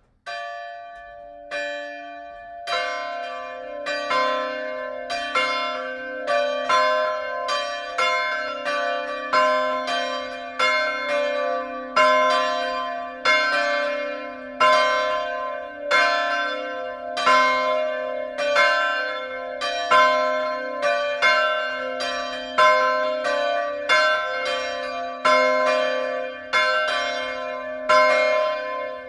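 Two bronze swinging church bells, cast by Petit & Fritsen in 1957 and tuned to c2 and d2, start a full peal. One bell begins striking, the second joins about three seconds in, and they then keep striking together in an uneven interleaved rhythm, each stroke ringing on under the next.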